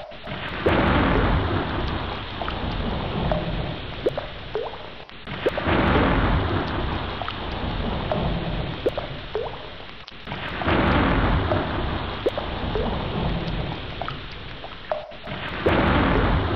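Heavy rain falling with a low thunder rumble underneath. The level dips briefly about every five seconds and then swells again.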